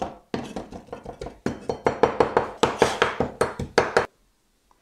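A broad-bladed kitchen knife finely chopping sun-dried tomatoes on a wooden cutting board: a quick, even run of knocks against the board, about five or six a second, growing louder partway through and stopping abruptly near the end.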